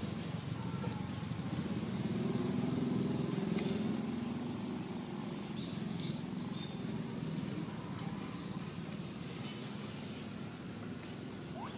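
Steady low rumble of a distant motor vehicle, with a short high chirp about a second in.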